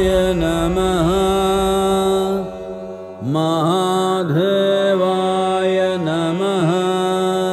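Devotional mantra chanting in the show's soundtrack: a sustained singing voice with ornamented dips in pitch. It breaks off briefly about two and a half seconds in, then resumes.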